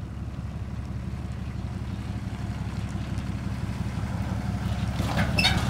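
Pickup truck engine running at low speed as it backs a boat trailer down a launch ramp, a steady low hum growing slowly louder. A short high-pitched squeal comes near the end.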